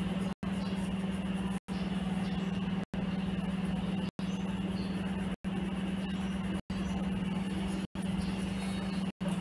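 A steady low hum with a hiss above it, cut by a brief silent gap about every one and a quarter seconds, like a short loop repeating.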